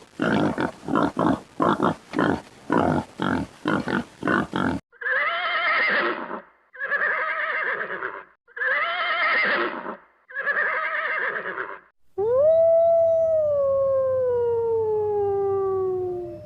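A sequence of recorded animal calls: a fast run of short grunts, then four long wavering calls, then one long call that slides down in pitch.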